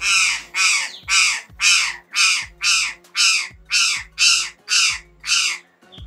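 Curl-crested jay calling: a run of eleven short, harsh calls, about two a second, each dipping slightly in pitch.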